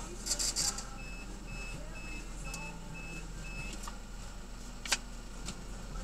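Parking-garage pay station beeping: six short, high, evenly spaced beeps, about two a second, after a brief hiss at the start. A single sharp click comes about five seconds in, as the barrier arm lifts, over a low engine hum.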